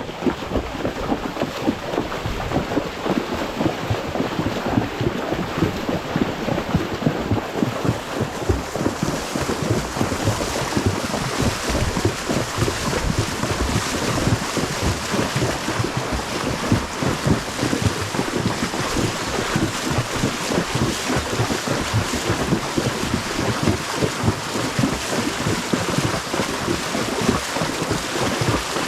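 Horse wading through a river in flood: continuous irregular splashing of its legs through the water over a steady rush of water, which grows fuller and hissier about eight seconds in.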